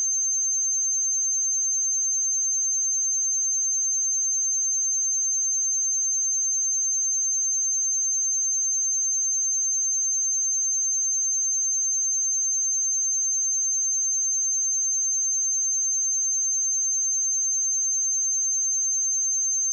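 A pure 6295 Hz sine-wave test tone: a single steady high-pitched tone held at constant level.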